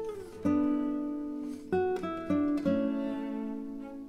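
Background music: an acoustic guitar plucking a slow run of notes and chords, each one ringing and fading before the next.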